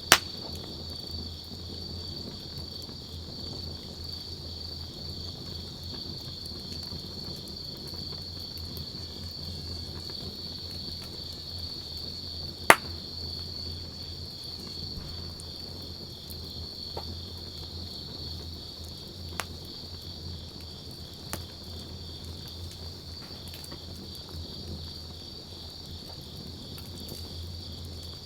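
Wood campfire burning with occasional sharp pops, a loud one right at the start and another about halfway, a few fainter ones later, over a steady high chirring of insects.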